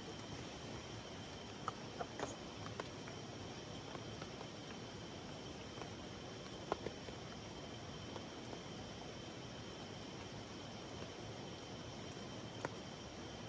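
Steady high trilling of night insects, with a few light clicks and taps of a wooden spoon against a metal mess tin and bowl as cooked rice is scooped out; the sharpest click comes near the middle.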